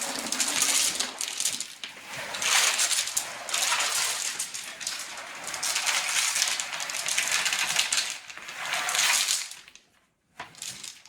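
Gravel tipped out of buckets onto the sub-base: several long pours of loose stones, one after another, stopping near the end.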